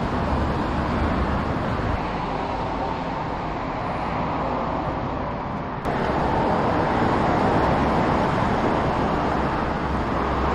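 Street traffic noise, a steady hum of passing cars, which jumps suddenly a little louder about six seconds in.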